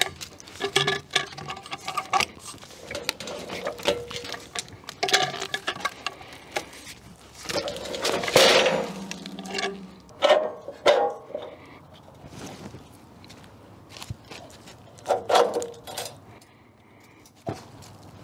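A cant hook turning a heavy pine log on a steel sawmill bed: scattered metal clinks and knocks. There is one louder, longer rumbling knock about two-thirds of the way through as the log rolls over onto the bed.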